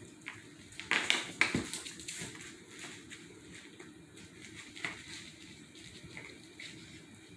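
Two small dogs playing with a plush toy and a puppy pad on a tile floor. A quick flurry of scuffling scrapes, knocks and rustles comes about a second in, then a few scattered softer ones.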